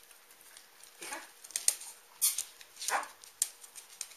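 A dog giving a few short, sharp barks in quick succession.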